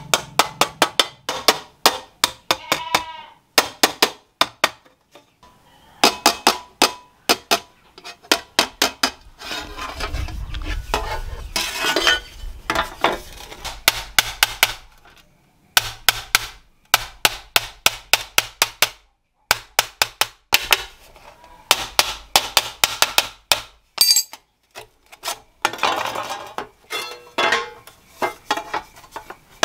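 Hammer tapping on metal in quick runs of sharp strikes, several a second, broken by short pauses, with a low hum under some of the runs.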